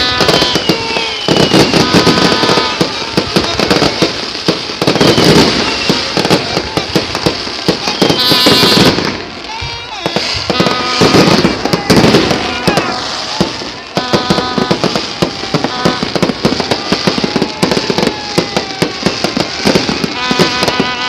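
Fireworks display: a continuous barrage of sharp bangs and crackling, with short whistling tones now and then and crowd voices underneath.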